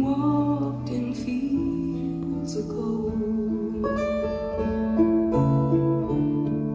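Music led by guitar, its notes held and changing every second or so.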